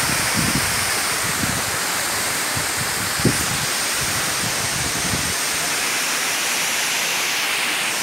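Steady rush of a waterfall pouring onto rock and into its plunge pool. Low wind buffeting on the microphone fills the first five seconds or so, with a single bump about three seconds in.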